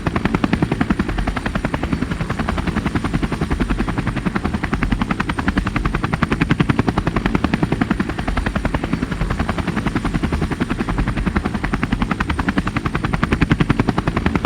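Helicopter rotor beating in a rapid, even chop that holds steady throughout.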